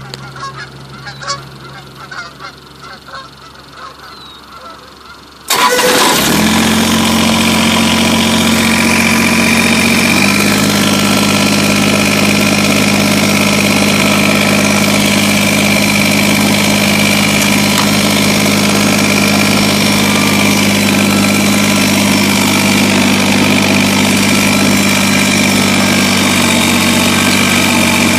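Kubota BX2380 sub-compact tractor's three-cylinder diesel starting suddenly about five seconds in, then running steadily. Its speed shifts slightly a few seconds after it starts. Faint goose honks come before the engine starts.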